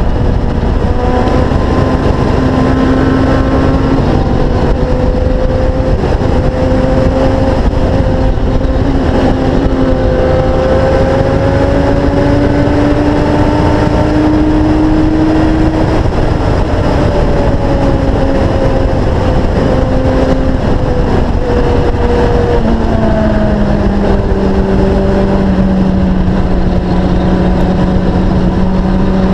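Sportbike engine running at road speed under heavy wind rush on the camera microphone, its pitch rising and falling slowly with the throttle and dropping lower about three-quarters of the way through.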